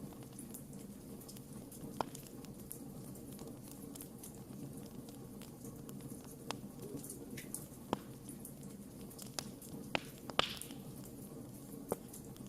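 Wood fire burning in a fireplace: a steady low rumble of the flames with irregular sharp crackles and pops from the logs. One louder pop, about three-quarters of the way through, is followed by a short hiss.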